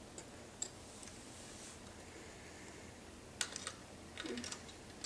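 Small hard plastic clicks and a short rattle of a Lego model being handled and its parts moved: two single clicks in the first second, then a quick cluster of clicks about three and a half seconds in and a brief rattle just after.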